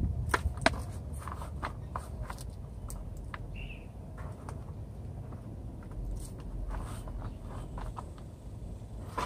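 Scattered light clicks and taps from hand gardening work, with a soil-covered hand tool and plastic nursery pots being handled, over a low steady rumble.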